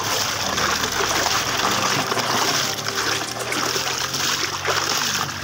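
A steady stream of water gushes and splashes onto a muddy toy dump truck, rinsing the sand and mud out of its tipped bed.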